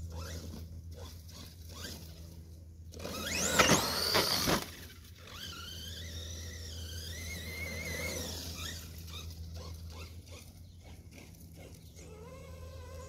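Electric motor of a Redcat Shredder RC car whining, rising sharply in pitch as it speeds up about three and a half seconds in, then a fainter wavering whine as it drives over grass.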